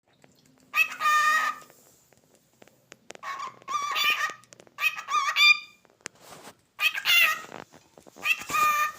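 Cockatiel calling: a series of about five loud, pitched, warbling calls, each under a second long, separated by short pauses.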